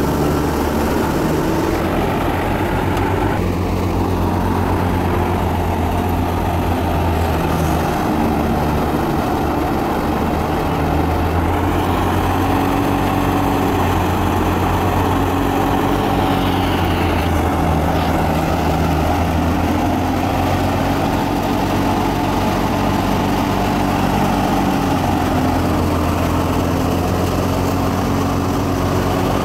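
Tractor engine running steadily under load, belt-driving an Al-Shehbaz wheat thresher whose spinning drum and fan add a continuous mechanical whir as wheat straw is threshed.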